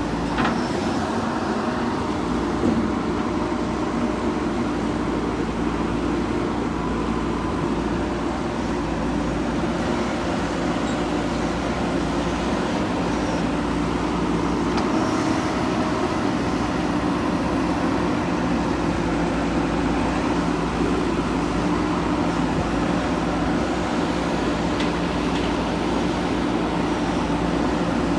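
Diesel engine of a JCB 3DX backhoe loader running steadily while it works, with a few faint clanks.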